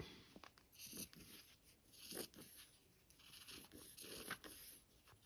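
Near silence, with a few faint soft rustles and taps from handling paper card and a plastic squeeze bottle of glue.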